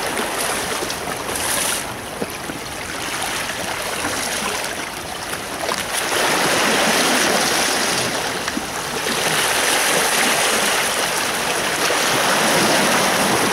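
Water splashing and washing, a hooked bluefish thrashing at the surface among small waves breaking on rocks; louder from about six seconds in.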